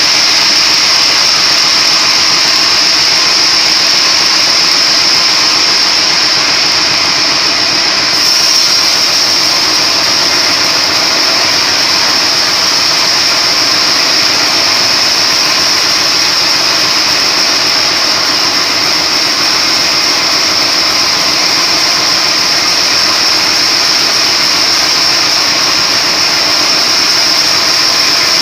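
A splitting machine running steadily: a loud, even mechanical noise with a high steady whine over it.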